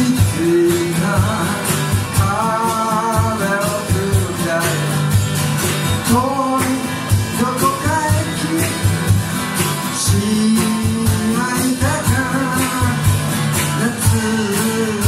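Live song: a man singing into a microphone while strumming an acoustic guitar.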